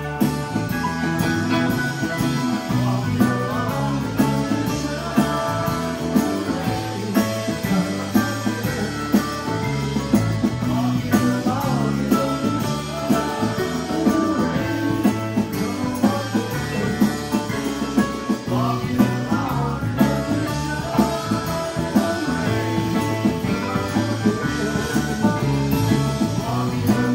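Live rock band playing: electric guitar and electric bass over keyboards, drum kit and congas.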